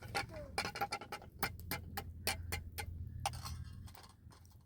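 A run of sharp, irregular clicks and taps, several a second, over a low steady hum.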